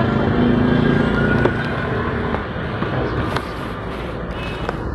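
Steady low motor rumble in the background, with a few light clicks and crinkles from plastic-wrapped cone ice creams handled in a cardboard carton.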